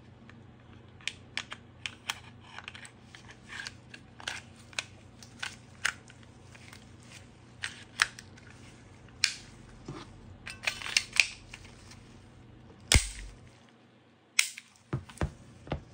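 Smith & Wesson Equalizer 9mm pistol being reassembled by hand: a run of small clicks and knocks of the polymer frame and steel slide going back together, then one loud, sharp snap about three seconds before the end, followed by a few more clicks.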